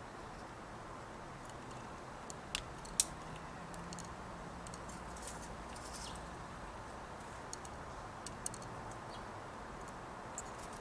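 Steady outdoor background hiss with a few short, sharp clicks and ticks; the two loudest come close together about two and a half to three seconds in, with fainter ticks near the end.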